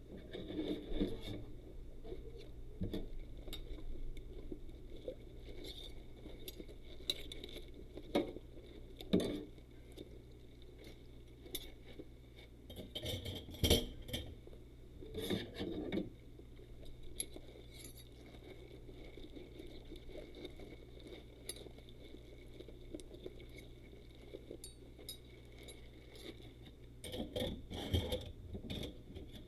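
Rubber-gloved hands scrubbing and handling dishes: irregular rubbing and scraping with scattered clinks of glass and cutlery, a few louder clusters of clatter spread through.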